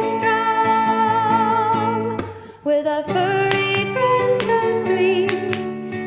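A song with a voice singing a wavering, held melody over acoustic guitar, pausing briefly about two seconds in.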